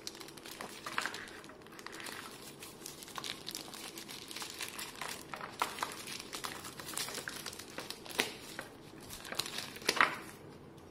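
Thin plastic protective bag crinkling and rustling as it is pulled off a small device by hand: irregular crackles and soft clicks, with a few sharper crackles near the end.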